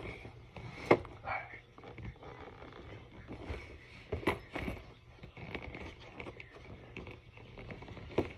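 A cardboard figurine box being handled and opened by hand: scattered rustling and scraping of cardboard flaps with sharp taps and clicks, the loudest about a second in and a pair around four and a half seconds in.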